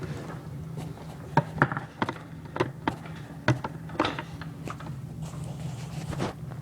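Plastic vacuum-cleaner parts knocking and clicking together as the vacuum is assembled: about nine sharp knocks at uneven intervals, over a steady low hum.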